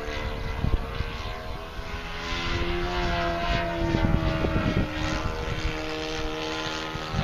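Hangar 9 Saratoga radio-controlled model airplane flying overhead: a steady engine-and-propeller drone whose pitch wavers slightly as it moves across the sky, with gusty wind rumbling on the microphone.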